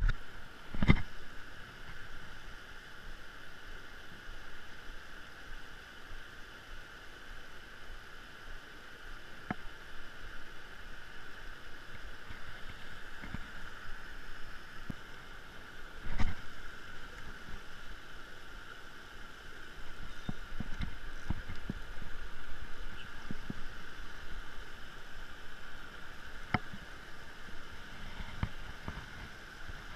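Steady rushing of a small rocky stream running over a cascade, with a few sharp knocks and rustles of handling close to the microphone, the loudest about a second in and again about halfway.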